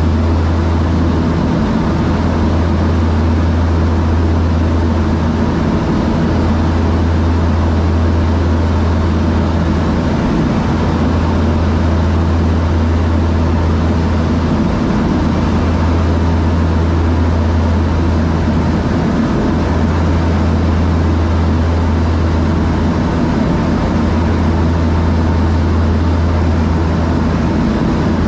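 The DHC-6 Twin Otter's twin Pratt & Whitney PT6A turboprops and propellers running steadily, heard from inside the cabin as a loud, deep drone with a hissing rush over it. The drone swells and fades slowly, about every four to five seconds.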